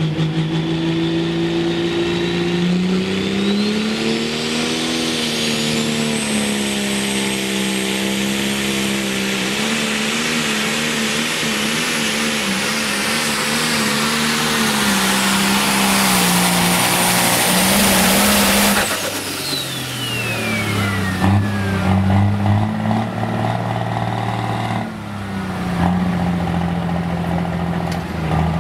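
Turbocharged diesel pulling tractor making a full-throttle pull: the engine comes up under load with a high turbo whistle climbing in pitch, and the noise keeps building for about fifteen seconds. The throttle is then cut abruptly, the turbo whistle falls away over a couple of seconds, and the engine drops back to a lower, uneven run.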